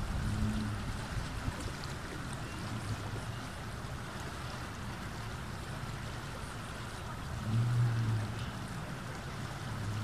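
Shallow river flowing steadily over rocks, a continuous rushing wash. A brief low hum swells up at the start and again about three-quarters of the way through.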